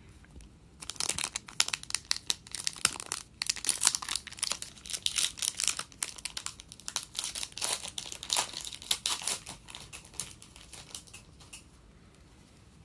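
Foil wrapper of an Upper Deck hockey card pack being torn open and crinkled: a dense run of crackles starting about a second in and thinning out near the end.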